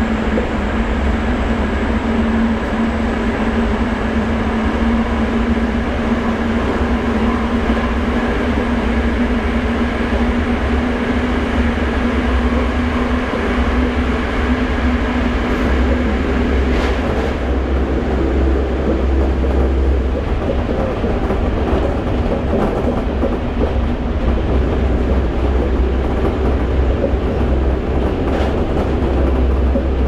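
Inside a Toei 5300 series train with Mitsubishi GTO-VVVF traction equipment running at speed: a heavy, steady rumble of wheels and running gear, with a steady whine that fades away about halfway through.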